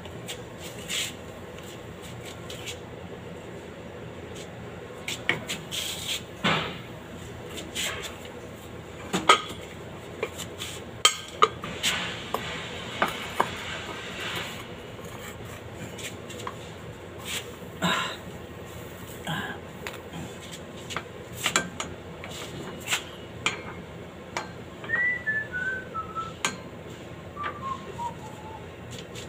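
Intermittent metallic clinks and knocks of tools and the steel propeller shaft as the shaft is fitted under a Toyota Land Cruiser. Near the end come two short runs of whistled notes falling in pitch.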